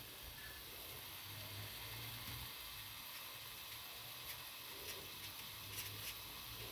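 Oil sizzling faintly around a breadcrumb-coated green-pea kebab shallow-frying in a flat pan, with a few small crackles past the middle.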